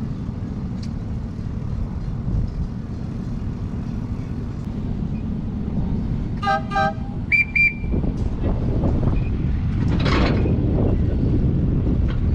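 A 7½-inch gauge miniature train rumbling steadily along the track. About six and a half seconds in its whistle gives two short toots, followed by a brief higher whistle note, and a short rushing hiss comes near the ten-second mark.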